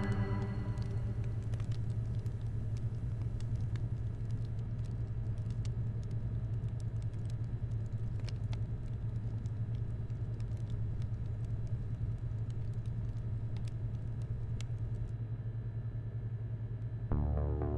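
A fire crackling faintly with scattered, irregular pops over a steady low rumbling drone; the pops thin out near the end and a sustained low music chord comes in.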